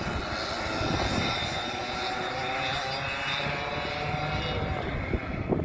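Engines of several dirt-track racing karts running at high revs as the field laps the oval, a buzzing whine whose pitch slowly shifts as they pull away.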